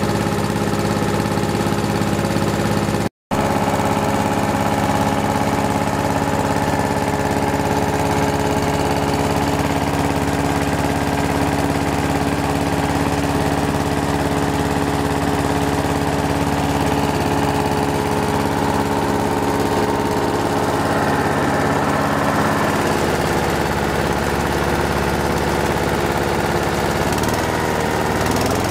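Honda GXV120 118 cc OHV vertical-shaft engine of a Honda HR 214 lawn mower running steadily with the mower standing still. The sound drops out completely for a moment about three seconds in. Near the end the engine speed wavers up and down as the throttle linkage is worked by hand.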